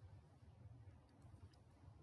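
Near silence: faint low background hum and hiss.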